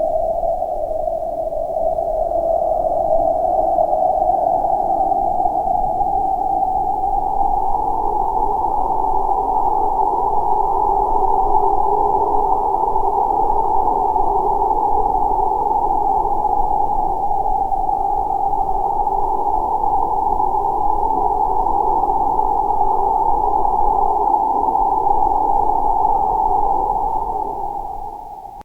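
Eerie wind sound effect: a steady whistling wind tone held in a narrow band of pitch, drifting slowly higher over the first several seconds. It fades out near the end.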